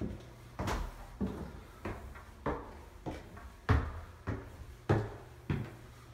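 Footsteps climbing wooden stairs at a steady walking pace, about ten knocking steps, roughly one every 0.6 seconds.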